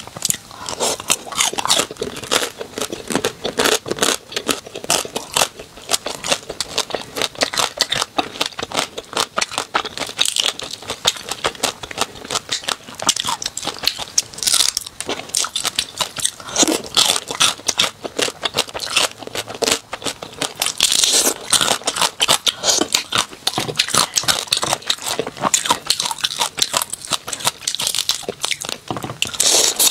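Close-miked eating sounds of small shellfish in chili oil: shells cracking and being pulled apart by hand, with wet crunching and chewing, in dense irregular crackles and clicks.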